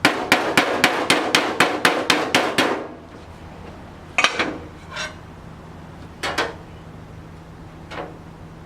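Hammer striking a sheet-steel body panel to shape it. A fast run of about a dozen ringing blows at roughly four a second comes first, then a few single blows spaced a second or more apart, the last one lighter.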